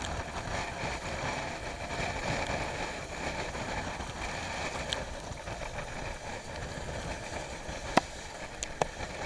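Steady rush of wind and water on an AC45 racing catamaran sailing at about 17 knots, with wind buffeting the microphone. A sharp knock about eight seconds in and a lighter one shortly after.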